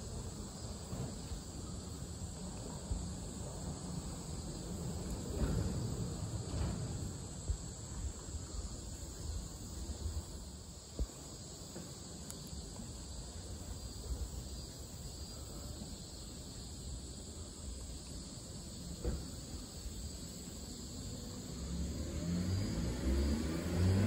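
Steady outdoor background of distant traffic rumble and hiss, with a few faint knocks. Near the end a vehicle's engine grows louder and rises in pitch.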